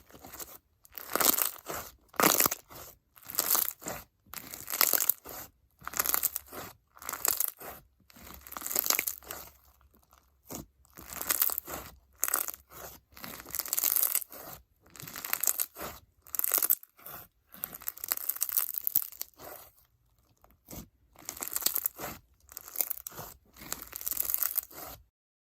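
Crunchy icee-jelly slime packed with foam beads and bingsu beads being squeezed and pressed by hand, crackling and popping in repeated bursts about once a second.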